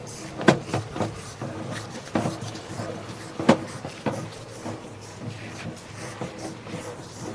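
Sewer inspection camera push cable being reeled back in: scattered knocks and clicks over a steady hum, the loudest knock about three and a half seconds in.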